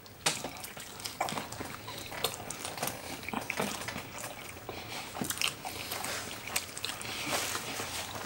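People biting into and chewing a guacamole bacon burger close to the microphone: a stream of small, irregular wet clicks and crunches.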